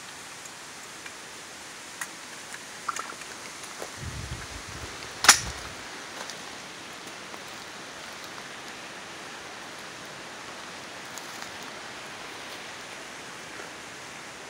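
An AR-style rifle is handled while being readied: a few light clicks, then one sharp metallic clack about five seconds in, over a steady outdoor hiss.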